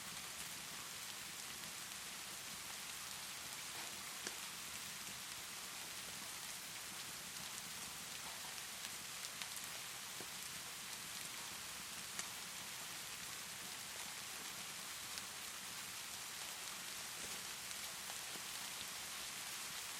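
Steady rainfall, an even hiss, with a handful of sharp pops from a crackling fireplace scattered through it.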